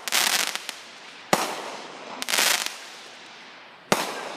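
Consumer fireworks cake firing aerial shots: sharp bangs about a second in and near the end, with bursts of crackling hiss from the breaking shells in between.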